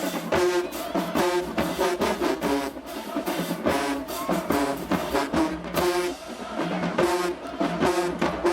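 Marching band brass and drumline playing, with short repeated brass chords punched out over a steady drum beat.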